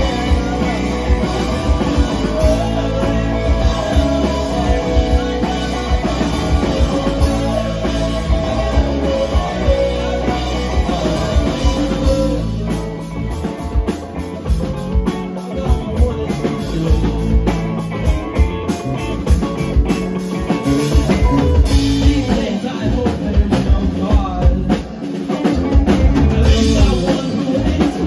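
Live rock band playing: electric guitars, bass guitar and drum kit. About halfway through the band drops to a quieter, sparser passage, then builds back and comes in full and loud near the end.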